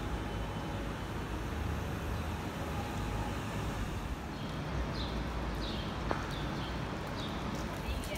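City street in the rain: a steady rumble of traffic over an even wash of noise from the wet street. In the second half, a run of short, high chirps repeats about twice a second.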